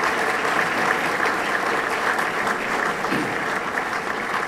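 Audience applauding, steady clapping.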